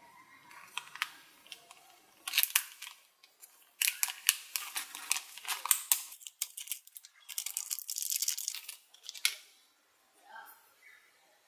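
A silver anti-static foil bag being torn open and crinkled by hand as a paper card and an ESC are pulled out of it. Irregular crisp crackling in bursts, the longest and loudest from about four to nine seconds in.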